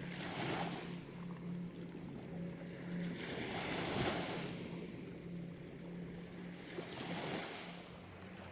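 Small river waves washing in on the shore in three swells a few seconds apart, over a steady low hum.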